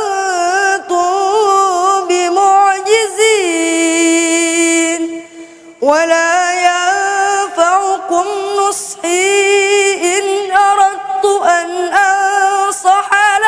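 A boy's voice reciting the Quran in melodic tajwid style: long drawn-out notes with ornamented turns, broken by a short breath about five seconds in.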